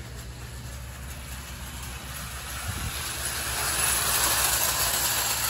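O-gauge electric model train, a silver streamlined diesel-front shell pulling matching cars, running on three-rail tinplate track. Its wheels and motor grow louder as it passes close about four seconds in, over a steady low hum.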